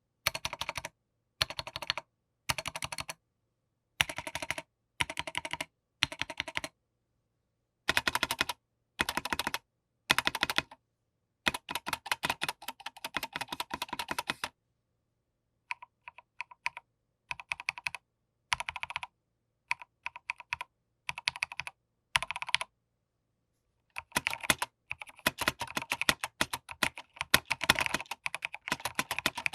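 Typing on a Rama Works Kara 60% mechanical keyboard with stock, unmodded Durock V2 stabilizers. Short runs of keystrokes come in bursts with pauses between them, then give way near the end to dense, fast typing.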